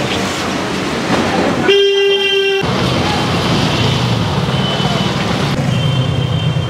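A single steady horn-like toot about two seconds in, lasting about a second, over street noise. A steady low hum, like a running vehicle engine, follows it.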